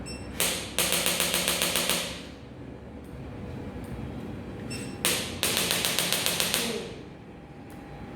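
Handheld chiropractic adjusting instrument firing twice: each time one sharp tap, then a rapid run of about a dozen taps, roughly ten a second, with a buzzy hum.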